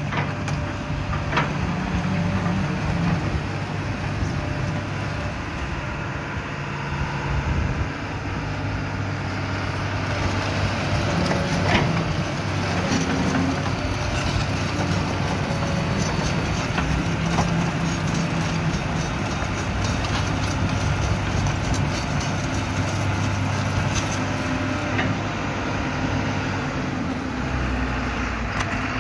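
Case CX210 long-reach excavator's diesel engine running steadily, its note shifting up and down, with a few sharp clanks, the loudest about twelve seconds in.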